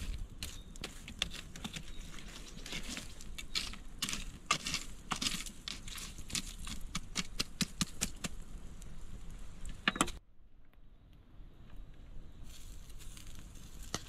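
Wood fire embers crackling, with frequent sharp pops and snaps. About ten seconds in the sound cuts off abruptly, and fainter crackling returns a couple of seconds later.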